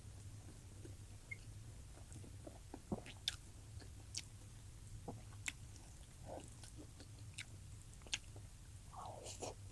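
Close-miked mouth sounds of someone eating: soft wet chewing with scattered sharp clicks from the mouth, over a low steady hum.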